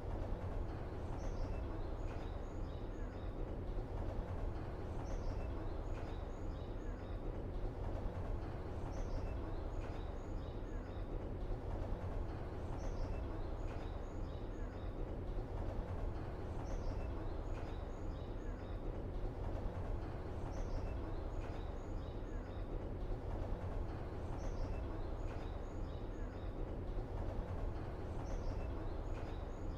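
Background ambience: a steady low rumble with a short cluster of high chirps that repeats exactly about every four seconds, like a short loop played over and over.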